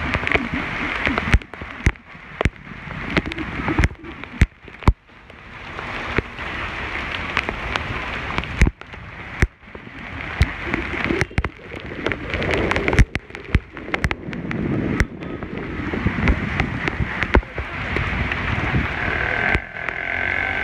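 Rain falling steadily, with wind buffeting the microphone and many irregular sharp taps of raindrops striking the phone.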